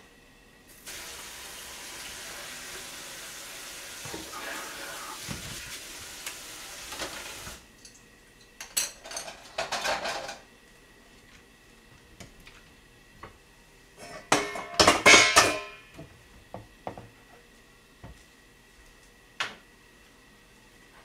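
Kitchen tap running for about seven seconds, then chopsticks and small side-dish bowls clattering as they are handled, loudest about two-thirds of the way through, with a few light clicks after.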